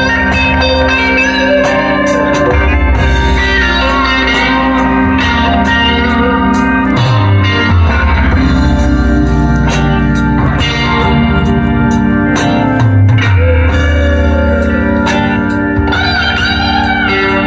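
Guitar-led band music, blues-rock in style, with a gliding lead guitar line over a moving bass line and a steady drum beat.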